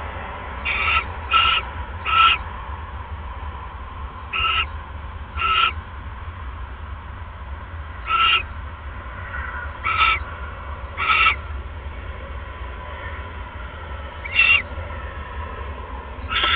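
Barn owl giving short calls, about ten of them a second or more apart at irregular intervals, over a steady low hum.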